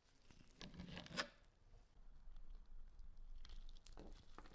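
Short bursts of crinkling and rustling as soft metal epoxy tubes are handled and squeezed with gloved hands, once about a second in and again near the end.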